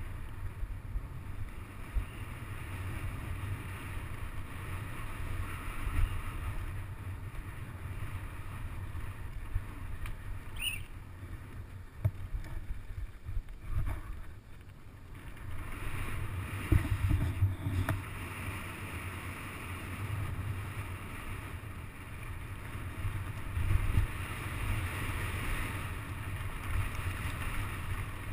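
Mountain bike descending a rough dirt trail at speed: wind rushing over the microphone, with tyre noise and frequent knocks and rattles from bumps and rocks. There is a brief high chirp about eleven seconds in.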